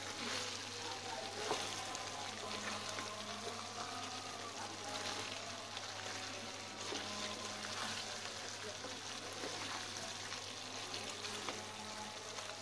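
Spiced beef for kala bhuna sizzling steadily as it fries in oil in a wok, turned with a wooden spatula that gives scattered faint scrapes and knocks. The meat is at the end of its frying-down (kosha) stage.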